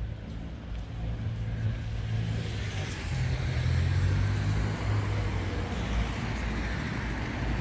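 A motor vehicle passing close by on a city street: engine hum and tyre noise build to their loudest about halfway through, then ease slightly.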